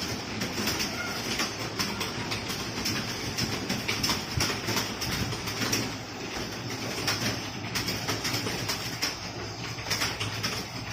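Computer keyboards clattering as people type at a typing test, with a dense, uneven run of overlapping key clicks throughout.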